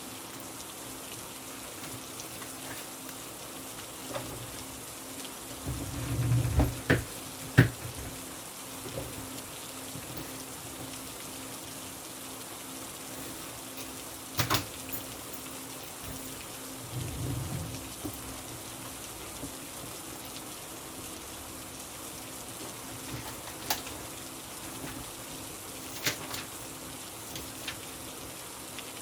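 Steady rain hiss, with a few sharp clicks scattered through it and two short low thumps, about six and seventeen seconds in.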